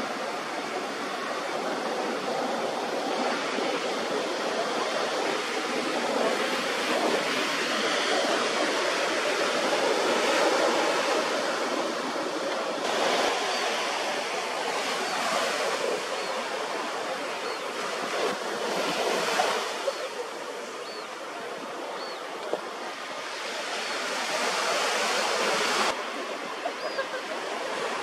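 Ocean surf washing onto a beach: a steady rushing noise that swells and eases, with a few faint, short, high chirps in the second half.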